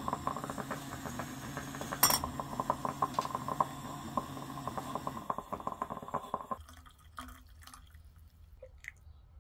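Stainless steel stovetop moka pot gurgling and sputtering rapidly over a small gas burner as the brewed coffee comes up, with one sharp metallic click about two seconds in. The gurgling stops abruptly about six and a half seconds in. Near the end, coffee is poured from the pot into a metal mug, much more quietly.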